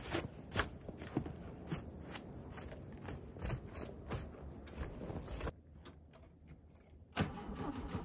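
Crunching and scraping of snow being brushed off a buried car and its door being worked open. About seven seconds in, the old air-cooled VW Beetle engine turns over and catches on a cold start in deep snow.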